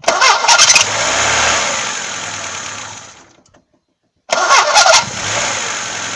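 VAZ-2106's cold four-cylinder engine being started twice: each time a brief burst of starter cranking, now without a squeal, then the engine catching and running. The first run fades out after about three seconds, and after a second of silence the engine is cranked and started again.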